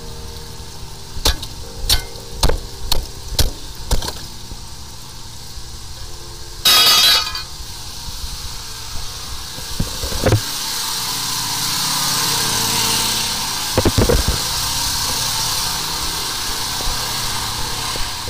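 Metal tool and a cast-iron manhole cover clinking: about six sharp metallic clinks in the first few seconds, then a loud grating clatter lasting about half a second, and later a few more knocks over a steady hiss.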